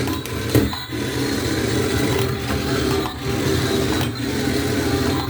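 Remote-control stunt car's small battery-powered electric motors and plastic gearboxes whirring and grinding steadily as it drives and spins on a smooth wooden surface.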